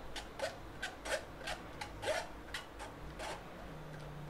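Metal spoon scraping and pressing blended cucumber pulp against a stainless-steel mesh strainer, in quick repeated rasping strokes, about two to three a second.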